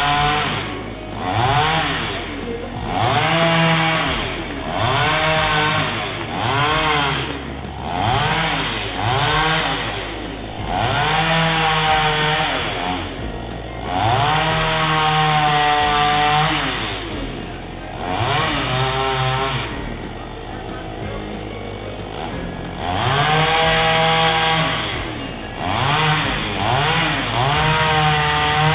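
Petrol chainsaw engine revved again and again, the pitch climbing and falling back every second or two as the throttle is squeezed and released, with a few longer holds at high revs.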